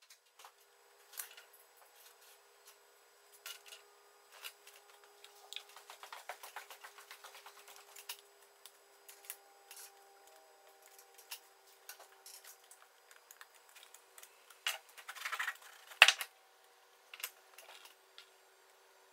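Small clicks, taps and scrapes of a tranchet marquetry knife working thin sawn veneer pieces: a run of quick scratchy ticks about six to eight seconds in, and a short scrape ending in a sharp click about sixteen seconds in, the loudest sound.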